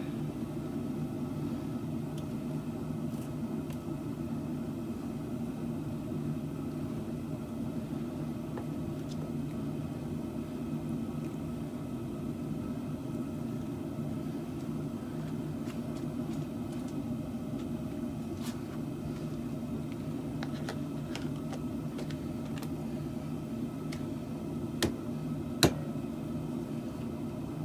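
Steady low machine hum, even throughout, with two sharp clicks close together near the end.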